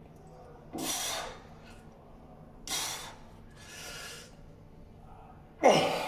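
A man breathing forcefully while flexing: four sharp exhalations through the nose or mouth, the last one the loudest, near the end.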